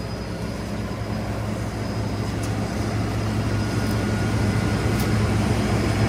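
Diesel engine of a John Deere combine running steadily with a low hum, growing gradually louder.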